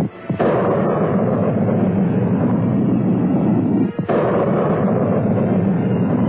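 Solid-fuel Nike rocket booster firing at launch: a loud, steady rush of rocket exhaust noise that breaks off briefly near the start and again about four seconds in.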